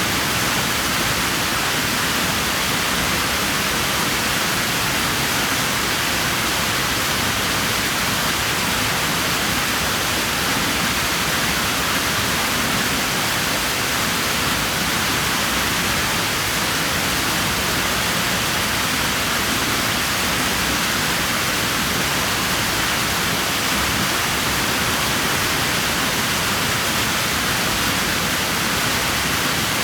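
Steady rushing of moving pool water, an even hiss that does not change.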